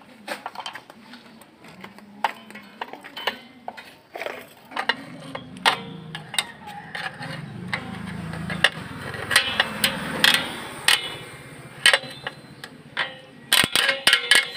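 Steel tool clicking, tapping and scraping against an exposed rear drum brake's shoes and hardware, in irregular knocks, with a quick run of clicks near the end.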